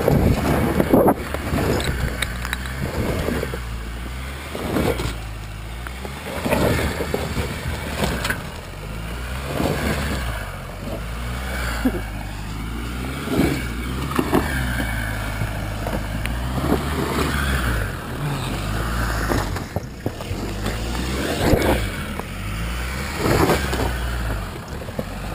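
Jeep Wrangler JK's diesel engine pulling the vehicle and an off-road trailer up a steep rocky slope, a continuous low drone. Gusts of wind hit the microphone again and again.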